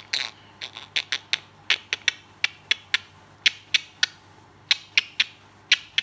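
African grey parrot making a rapid series of sharp clicks with its beak and tongue, about twenty of them at an uneven pace of roughly three a second.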